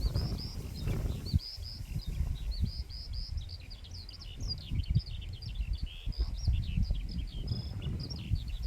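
A small bird singing a long, unbroken song of rapid, high chirps and trills, over a low rumble of wind on the microphone.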